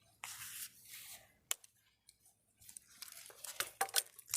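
Clothing being handled on a store rack: fabric and plastic rustling, with several sharp clicks like hangers knocking, the busiest near the end.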